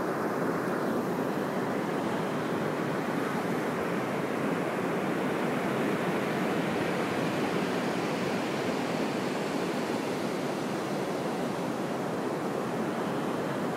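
Ocean surf washing steadily onto the beach: an even, unbroken rush of noise.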